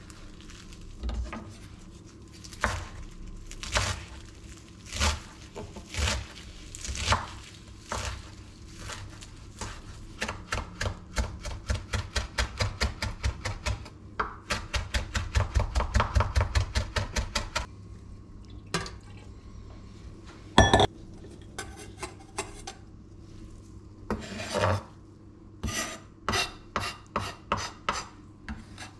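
Chef's knife chopping fresh herbs on a wooden cutting board: a few scattered cuts at first, then a fast, even run of about four knife strikes a second. One sharp, loud knock comes near the middle, and near the end the blade scrapes across the board, followed by another quick run of chops.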